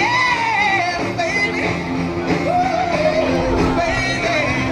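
Rock-style pop song with a lead singer, the melody gliding up and down over steady backing notes.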